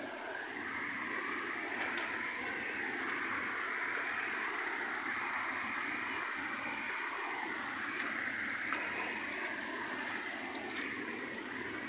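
Steady rushing of muddy rainwater runoff streaming over grassy slopes and down a dirt path after heavy rain.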